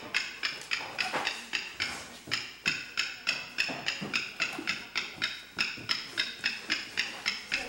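Steady, rhythmic knocking, about three sharp taps a second, each with a brief ringing tone like a struck wood block.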